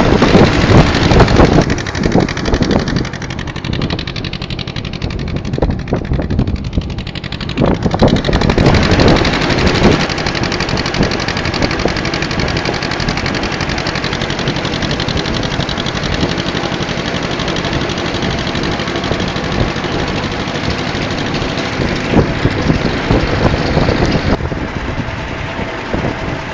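Old farm tractor's engine running steadily as it drives along a road, heard close from on board the tractor.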